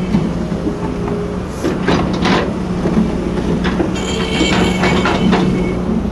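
Heavy machine's engine running steadily with a low hum, with irregular sharp knocks and clanks over it.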